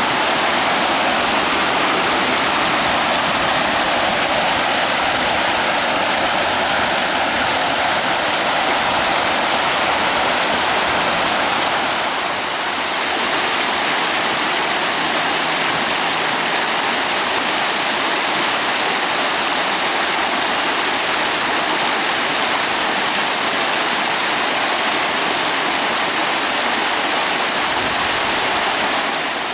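Fast, muddy floodwater rushing and churning past brush and debris, a loud steady rush of water. About twelve seconds in the sound changes to a brighter, hissier rush.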